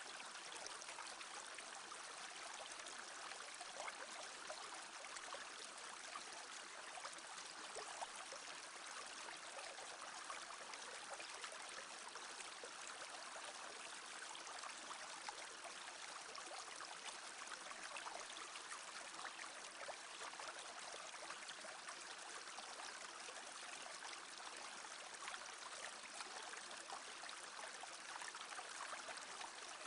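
A small brook babbling steadily, its water noise even and unbroken, with small irregular splashes.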